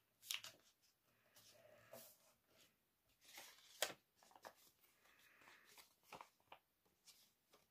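Faint crinkles and rustles of a sheet of printer paper being folded and handled into a paper airplane: a few short crackles spread out, the clearest a little before the middle.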